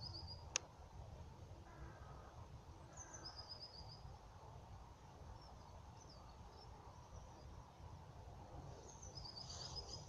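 Faint outdoor ambience: a low steady rumble with a few distant birds calling, including a short run of high stepped chirps about three seconds in and again near the end.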